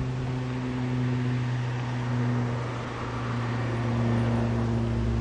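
An engine running at idle: a steady low hum whose pitch shifts slightly about halfway through.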